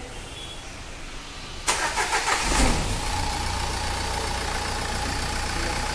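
Renault Duster's 1.5 dCi diesel engine cranked by the starter about a second and a half in, catching within about a second and settling into a steady idle. This is the first start after a fuel filter change, with the fuel system primed by the hand pump beforehand.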